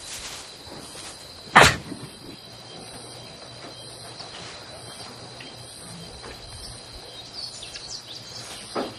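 Crickets chirping steadily, a thin high trill with regular higher chirps. A single sharp knock comes about a second and a half in.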